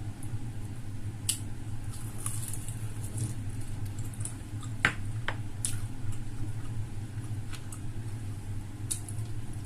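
Close-miked eating sounds: chewing and mouth clicks with scattered short, sharp ticks, one louder click about five seconds in, over a steady low hum.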